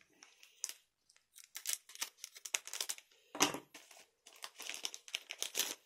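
Foil wrapper of a Weiß Schwarz trading-card booster pack crinkling and tearing as it is opened, in two stretches of short crackly rustles with one louder tear between them.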